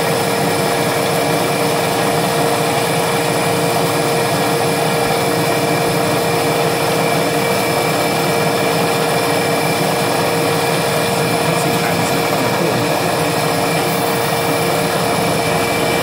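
A CNC milling machine's spindle running with a small end mill cutting thin aluminium plate. It makes a steady whine with several held tones over a continuous noisy cutting hiss.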